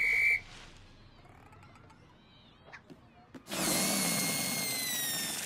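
Cartoon sound effects: a short, steady, high whistle-like tone that stops just after the start, then near quiet with a couple of faint clicks. About three and a half seconds in comes the loudest sound, a high squealing whistle over a rush of air-like noise, its pitch slowly falling, lasting about two seconds.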